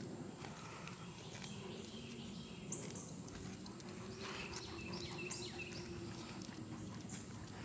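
Footsteps of slide sandals scuffing and slapping on asphalt in a walking rhythm, with a dog walking alongside, over a low steady outdoor hum. A few short bird chirps come about halfway through.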